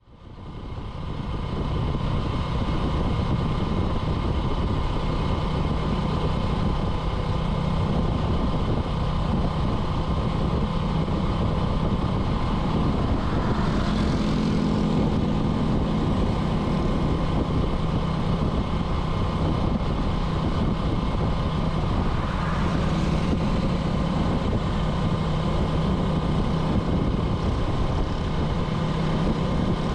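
Small motorcycle engine running at a steady pace while riding, a continuous drone with road noise, fading in over the first second or two. Hiss swells briefly twice along the way.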